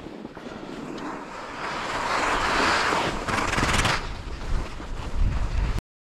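Skis hissing and scraping over firm, wind-packed snow, with wind buffeting the microphone. The scraping builds from about two seconds in, is sharpest around three to four seconds, and the sound cuts off abruptly near the end.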